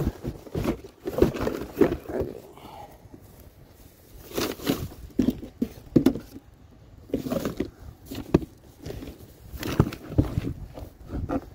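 Irregular knocks, clicks and rattles of hard objects being handled and shifted while rummaging through a pile of junk.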